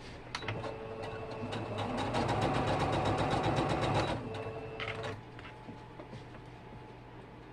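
Electric sewing machine running a burst of rapid stitches with its motor whining: it picks up speed, runs loudest for a couple of seconds, then slows and stops about five seconds in.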